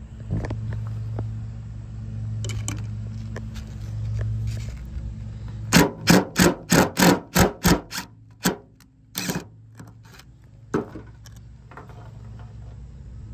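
Cordless DeWalt 20V impact driver hammering a #12 screw into an aluminium door surround. It runs in short pulses, about four a second for two seconds, then gives two brief bursts.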